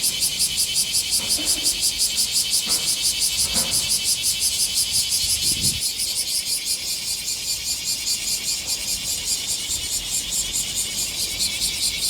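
Bear cicadas (kumazemi, Cryptotympana facialis) singing: a loud, high, pulsing buzz at about five to six pulses a second.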